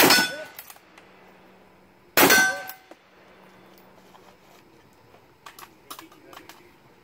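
Two shots from a Tikka T3 bolt-action rifle, about two seconds apart, each with a ringing tail. A few faint clicks of rifle handling follow near the end.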